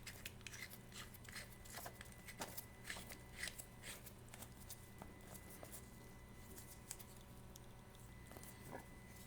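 Faint, scattered small clicks and light scrapes of hand tools on a watch at the bench, thinning out in the second half, over a steady low room hum.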